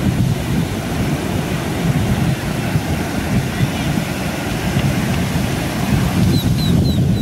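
Ocean surf breaking and washing up a sandy beach, with wind buffeting the microphone. Three short high-pitched chirps come near the end.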